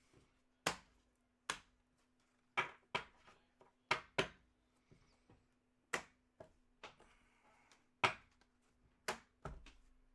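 Trading cards being flicked through and set down one after another, each giving a sharp snap or tap, about a dozen at irregular intervals of roughly a second, over a faint steady hum.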